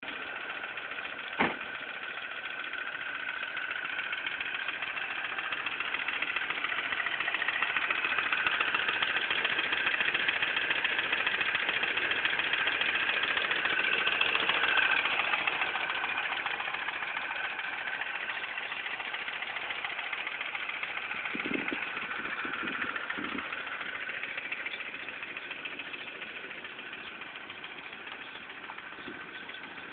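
Mini Cooper S engine idling with a ticking noise. A single sharp click comes about a second and a half in, and the engine sound grows louder through the middle, then fades again.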